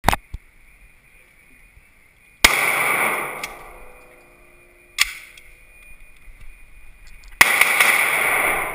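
Single gunshots from a Glock-based carbine, spaced about two and a half seconds apart; two of the shots are followed by a loud, noisy tail that fades out over a couple of seconds.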